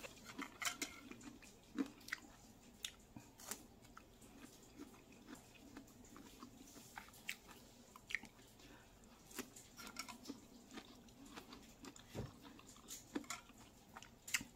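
Faint, close-up chewing and lip smacking while eating ripe mango: soft, irregular little clicks and smacks.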